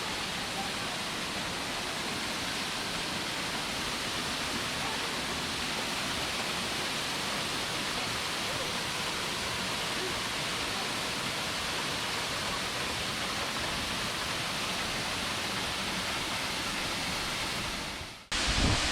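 Waterfall rushing with a steady, even roar of falling water. It cuts off abruptly near the end.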